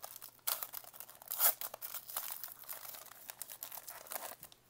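Foil wrapper of a Contenders football card pack crinkling and tearing as it is pulled open by hand: a dense crackle of small rips, loudest about a second and a half in, stopping just before the end.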